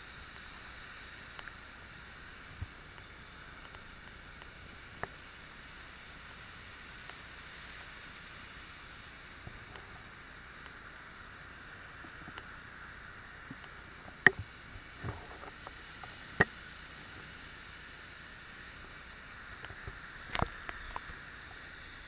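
Water rushing down a concrete spillway channel at the top of a waterfall, a steady hiss-like rush. A few sharp clicks and knocks cut through it, loudest about two thirds of the way through and again near the end.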